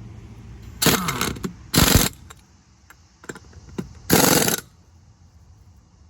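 A power tool run in three short bursts of about half a second each, near the start, about two seconds in, and past four seconds, with a few lighter metallic clicks between them.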